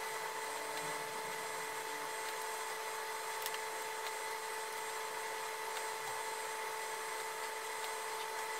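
Faint steady hum over hiss, with a few faint small clicks.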